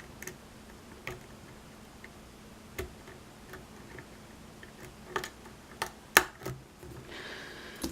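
Light, irregular metallic clicks and taps of a lock pick and tension wrench working the pins of a pin-tumbler lock, with a few sharper clicks in the latter half.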